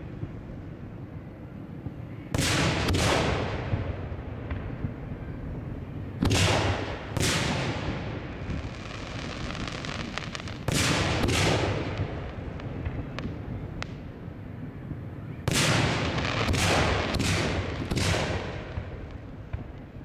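Aerial firework shells bursting: about ten loud booms, in twos and threes every four to five seconds, each trailing off in a long rumbling echo.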